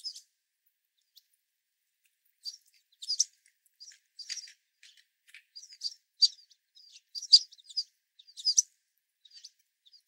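Sparrows at a winter seed feeder giving many short, high chip calls, a few at first and then coming thick and fast from about two and a half seconds in.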